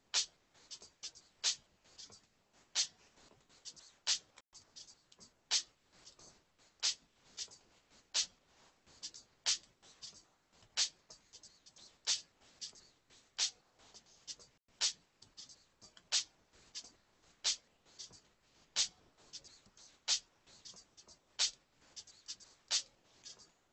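Faint, sharp percussive clicks in a steady rhythm: a stronger click about every second and a third, with lighter clicks between.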